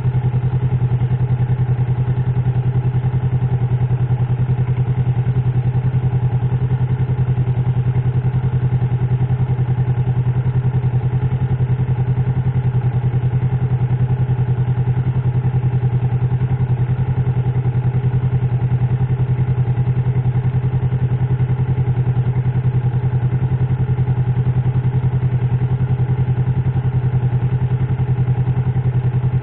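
An engine idling steadily: a constant low drone with a fast, even pulse that does not change.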